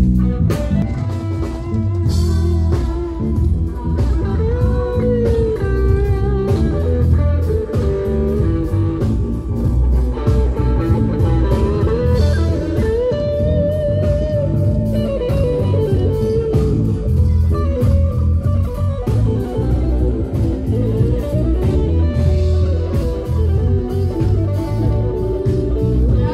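Live rock band playing amplified on stage: electric guitars and bass over a drum kit and keyboard, with a lead line that slides between notes.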